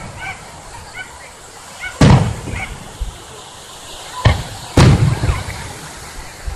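Aerial fireworks shells bursting: three loud booms, about two seconds in, just past four seconds and again half a second later, each trailing off in a low rumble.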